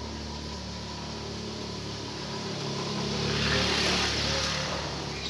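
An engine running steadily, with a rushing noise that swells about three seconds in and eases off near the end.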